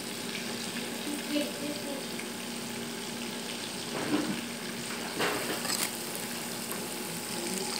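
Chicken pieces deep-frying in hot oil in a pan, a steady sizzling crackle, with a couple of short clicks of metal tongs turning a piece about four and five seconds in.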